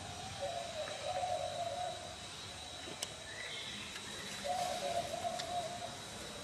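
Two drawn-out, low hooting animal calls, each about a second and a half long, the second starting about four seconds after the first.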